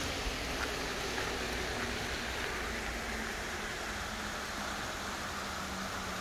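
Small, shallow creek running over rocks and riffles, a steady rushing of water.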